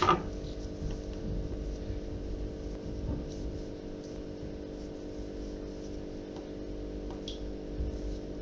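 Steady low hum of room tone, with a few faint soft ticks from hands working the dough.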